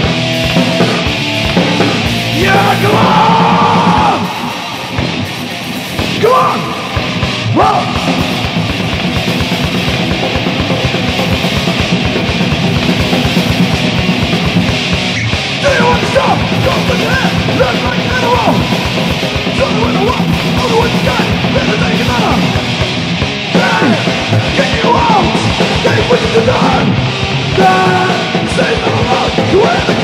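Thrash metal demo recording: a band playing distorted electric guitars over fast drumming, briefly dropping back about four seconds in.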